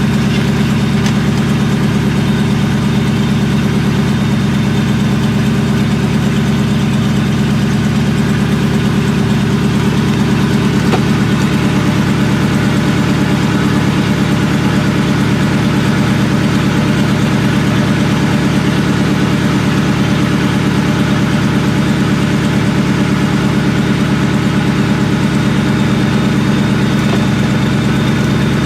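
Supercharged 4.6-litre two-valve V8 of a 1999–2004 Mustang GT idling steadily after a cold first startup. The car came back from the shop misfiring after new injectors and a tune.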